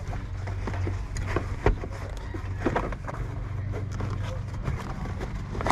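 Scattered knocks and scrapes from a floor liner and trim being worked into place inside a Jeep, loudest about a second and a half in, over a steady low hum.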